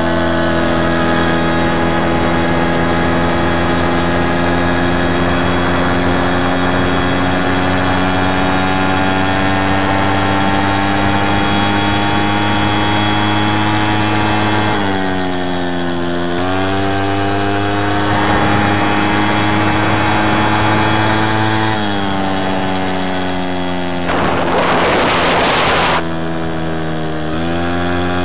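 VéloSolex moped's small two-stroke engine running steadily, its pitch dipping and picking back up three times. About two-thirds of the way through, a two-second burst of hiss.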